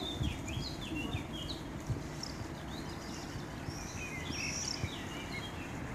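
Small birds chirping in quick runs of short notes over a steady low background rumble.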